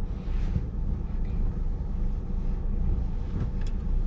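Car's engine and tyres making a steady low rumble, heard from inside the cabin while the car moves slowly.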